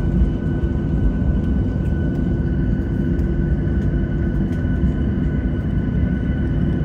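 Cabin noise of a Boeing 737-600 taxiing: a steady low rumble from its CFM56-7B jet engines at taxi power, with a few thin steady whining tones over it.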